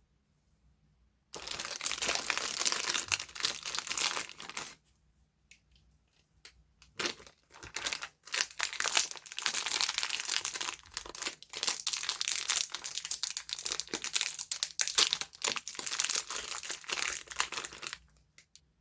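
Soap packaging crinkling and rustling as it is handled and unwrapped, in two long spells of dense crackling separated by a pause of a couple of seconds.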